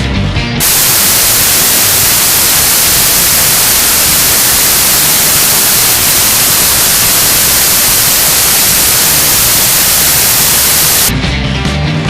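Loud, steady static hiss like white noise, strongest in the high range. It cuts in suddenly about half a second in and cuts off just as suddenly about a second before the end, with the band's rock music just before and just after it.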